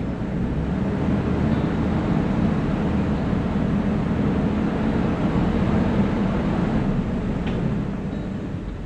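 Off-road vehicle's engine running and tyres rolling over a dirt trail as it drives along. The sound is steady, grows louder about a second in and eases off near the end.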